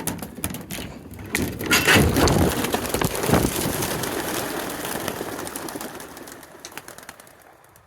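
A large flock of racing pigeons taking off together at liberation, a dense clatter of wingbeats. It swells quickly, then fades away over several seconds as the birds fly off.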